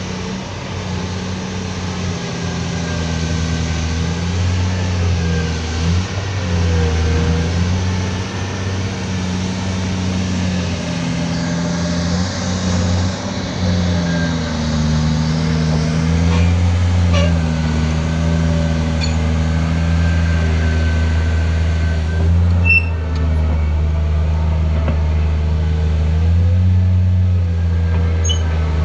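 Komatsu PC2000-8 mining excavator's large V12 diesel working under load, its deep note rising and falling as the machine hauls itself up a bank. A few short metallic clanks are heard around the middle and near the end.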